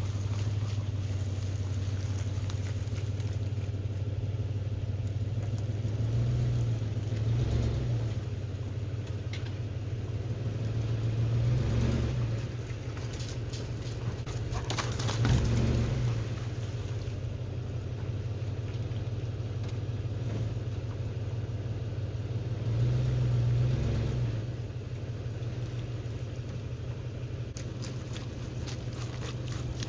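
Pickup truck engine running at low speed, a steady low hum whose note rises briefly about four times as it picks up.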